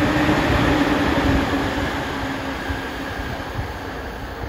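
E491 'East i-E' track and catenary inspection train running away along the station track, its wheels clattering over the rail joints, with a steady hum. The sound fades as the train pulls away.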